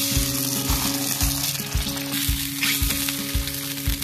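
Parmesan polenta cake sizzling steadily as it fries in hot oil in a frying pan, with background music and a steady beat underneath.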